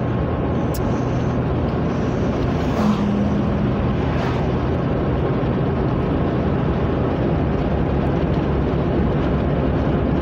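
Steady road and wind noise inside a moving car, with a low engine hum underneath.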